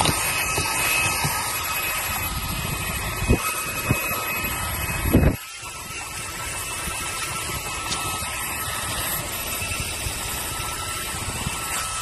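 Xiaomi Mi Vacuum Cleaner Mini (global version) cordless handheld vacuum running on car floor carpet: a steady rushing drone with a faint high whine over it. A few brief louder knocks come between about three and five seconds in, then the sound drops noticeably quieter and runs on steadily.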